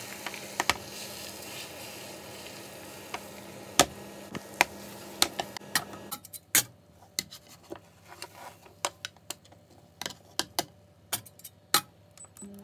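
Beaten egg and spinach sizzling in a square tamagoyaki pan, with chopsticks clicking against the pan and a steady low hum underneath. About six seconds in, the sizzle and hum stop and a string of light clicks and knocks follows as the pan and its cover are handled to flip the omelette.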